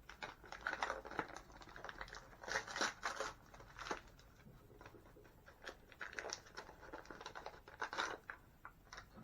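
Irregular rustling and crinkling of toy packaging being handled and opened, with scattered small clicks and taps.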